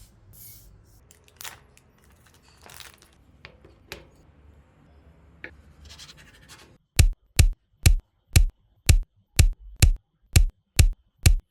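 Soft scraping and small clicks of food preparation, then about ten sharp, evenly spaced knocks, a little over two a second.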